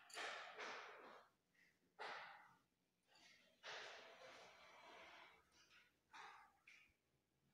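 Faint breathing close to the microphone: a string of uneven, hissy breaths with short gaps between them.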